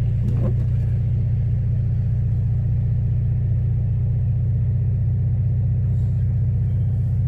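Steady low rumble of a car driving on a snowy road, heard from inside the cabin with the window down: engine and tyre noise at an even speed.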